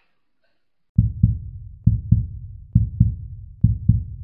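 Heartbeat sound effect: low, loud double thumps (lub-dub), about one pair a second, starting about a second in.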